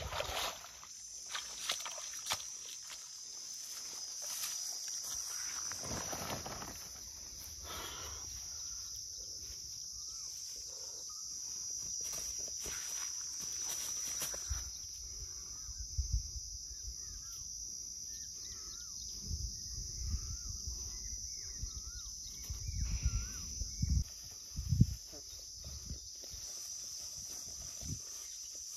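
Steady high-pitched drone of insects in the riverside grass, with short bird chirps repeating about once a second through the middle. Scattered low thumps and rustles, loudest near the end.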